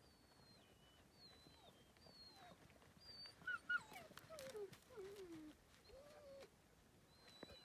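Slovakian Rough-haired Pointer puppy whimpering faintly: a few high whines that slide down in pitch about halfway through, then a short rising-and-falling whine.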